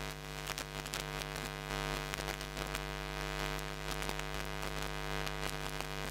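Steady electrical hum with crackles of static on the recording.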